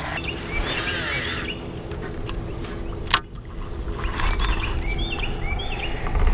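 A small bird chirping: quick high hooked notes in two bunches, one near the start and one past the middle. Under it runs a steady low hum, and there is a single sharp click about three seconds in.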